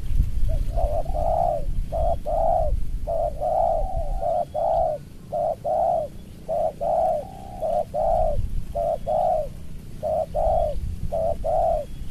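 Spotted doves cooing: a quick series of low, rounded coos in tight groups with short breaks between them. It is the territorial cooing of a decoy male facing off with a rival male.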